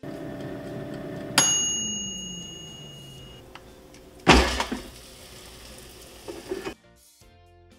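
Insignia 3.2 L analog air fryer running with its fan humming; about a second and a half in, its mechanical timer runs out with a click and a single bell ding that rings and fades, while the fan hum winds down in falling pitch. A few seconds later the plastic basket drawer is pulled out with a loud clatter and a few smaller knocks.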